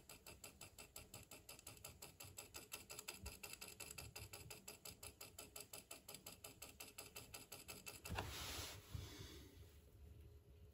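Faint, even ticking of about three to four a second from a running Vesna-202 cassette recorder's tape mechanism. About eight seconds in come two brief rustles of handling, after which the ticking stops and all is near silent.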